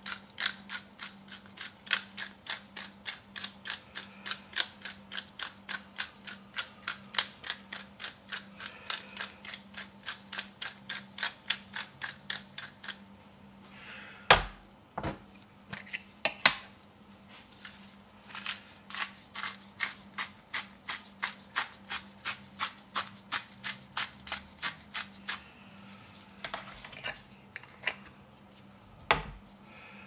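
Hand-twisted pepper mill grinding black pepper, crunching clicks about three to four a second in two long runs with a pause between them. Two heavy thumps, one about halfway through and one near the end.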